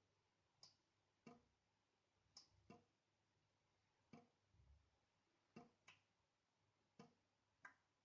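Water dripping from a tap into a sink: faint single drops falling at an uneven pace, roughly one a second. Some land as a short high plink, and a few come in quick pairs.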